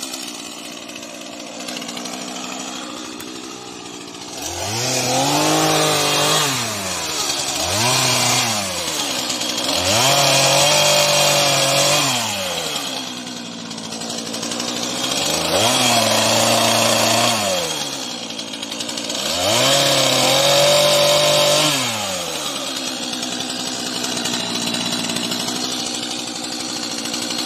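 Stihl MS 231 two-stroke chainsaw revving up to high speed and dropping back to idle about five times, each burst lasting a few seconds. It is at a lower idle between bursts and after the last one.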